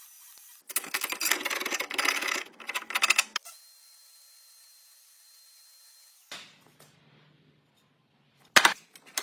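Rapid rattling clicks of woodworking tool work for about three seconds, a weaker rattle later, then a single sharp knock near the end.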